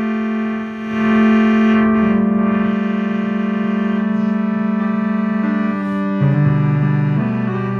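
Ambient electronic keyboard music: slow, held synth chords with a steady pulsing wobble. The bass note shifts about two seconds in, and from about five and a half seconds on the notes change more often.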